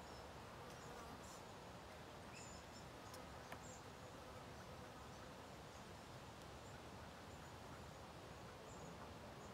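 Near silence: faint outdoor background hiss with a few faint, short high-pitched chirps and one small click about three and a half seconds in.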